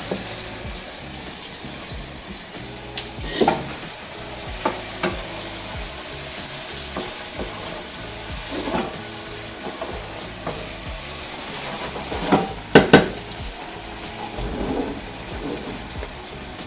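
Saltfish and sautéed seasoning sizzling in a hot pot while being stirred, with a few sharp knocks of the utensil against the pot, the loudest two close together about three-quarters of the way through.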